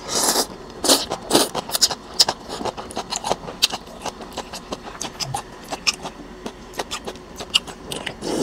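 A person eating rice-noodle soup close to the microphone: noodles slurped in with a noisy suck at the start and again about a second in, then wet chewing with many short smacking clicks of the mouth, and a sip from a spoon at the very end.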